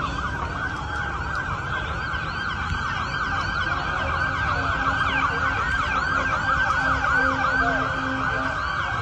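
Several emergency vehicle sirens sounding at once in a fast yelp, rapid rising-and-falling cycles overlapping one another, over a steady low rumble.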